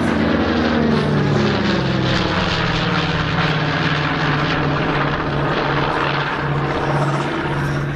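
North American B-25 Mitchell's two Wright R-2600 radial engines droning as the bomber passes and climbs away. The pitch falls in the first second or two, then holds steady with a regular throb.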